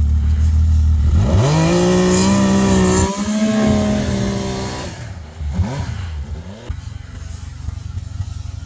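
Snowmobile engine idling, then throttled up hard about a second in and held at high revs for about three seconds as the rider tries to drive the stuck sled out of deep snow. The revs then drop and the engine fades to a quieter running sound.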